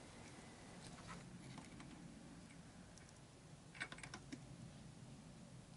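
Faint light metallic clicks and taps from a motorcycle side stand's coil spring and a hand tool being worked by hand, with a short cluster of clicks about four seconds in. Otherwise near silence.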